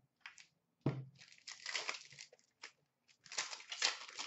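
A hockey card pack's wrapper being torn open and crinkled in two stretches of a second or so each, after a light knock about a second in.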